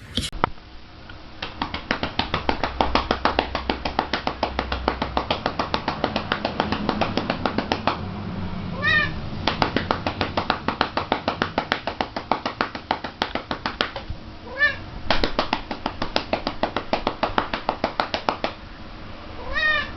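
A domestic cat meows three times, once about halfway through, again a few seconds later, and once at the very end. Under the meows runs a fast, even clicking of unknown source.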